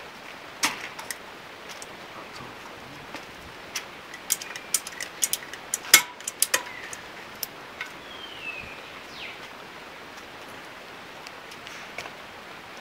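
Sharp metallic clicks and taps from a homemade silicone-gun valve spring compressor being worked on a cylinder head. They are scattered, with a quick run of clicks in the middle and the loudest about six seconds in.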